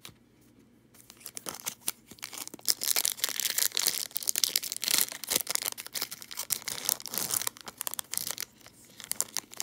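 A trading card pack's foil-lined wrapper being torn open and crinkled by hand. It begins about a second in as dense crackling and eases off near the end.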